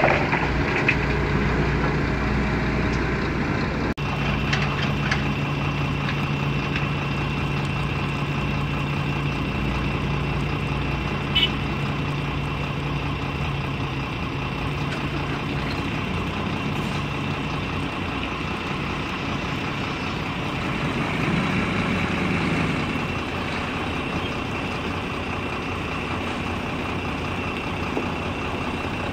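Diesel engines of a Hitachi Zaxis 210 excavator and a Mercedes-Benz Actros 4144 dump truck running steadily, with the low engine hum fading out about halfway through.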